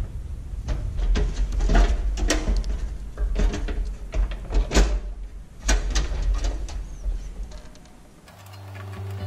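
Clicks and knocks of hands handling the casing, front cover and carrying handle of a small instant gas water heater as it is put back together. Music fades in near the end.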